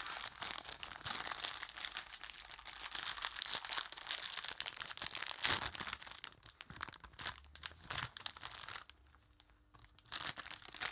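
Plastic sweets bag crinkling and rustling as it is pulled open by hand: a dense crackle through most of it, quieter for the last two seconds apart from a short rustle.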